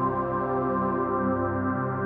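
Slow ambient background music of long held chords.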